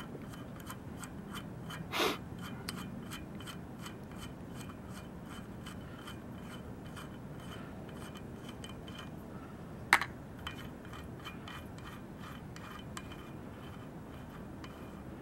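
Cone nut and lock nut being spun together off a bicycle hub's threaded axle by hand: faint repeated small ticks and scraping of metal on the threads, with a sharper click about two seconds in and another about ten seconds in.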